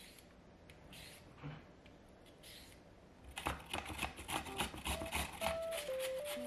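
A carrot being grated on a flat stainless-steel hand grater: rapid rasping strokes, about four a second, starting about three and a half seconds in. Before that, a few faint scrapes of a vegetable peeler on the carrot.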